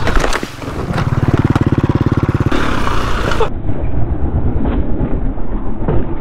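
Dirt bike engine running and revving over rough trail, with a steady held note for a second or so before it eases off. About halfway through, the sound turns abruptly duller.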